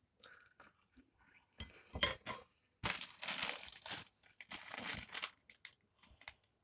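Food packaging crinkling as it is picked up and handled for about two and a half seconds, after a few short clicks.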